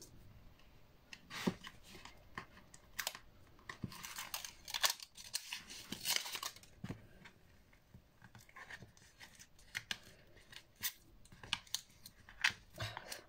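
Faint handling of paper and of double-sided tape as its backing liner is peeled off: scattered crinkles, small clicks and short rustles.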